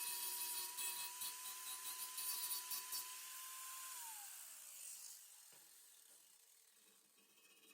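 Small handheld power tool whining steadily, with the gritty hiss of an abrasive sanding sheet metal. About four seconds in it is switched off, and the whine falls in pitch as it spins down.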